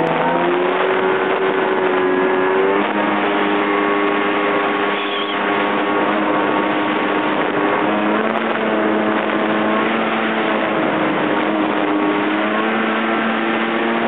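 Yamaha jet ski engine running at speed, a steady loud drone whose pitch shifts a little up and down a few times, over a constant rushing noise.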